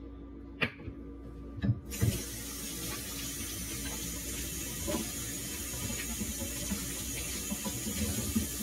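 Kitchen faucet turned on about two seconds in, water running steadily into the sink, with pieces of green bell pepper held under it. A few light knocks come just before the water starts.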